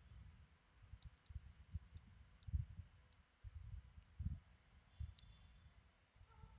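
Faint, irregular computer keyboard typing: soft key thumps with light clicks.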